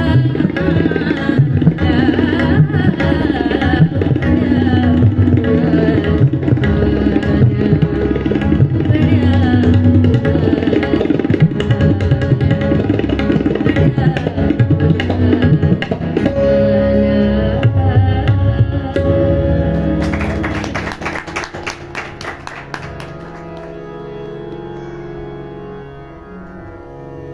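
Tabla playing a dense rhythm over harmonium, ending with a fast flurry of strokes about two-thirds of the way through; after that the harmonium's held notes carry on alone and fade.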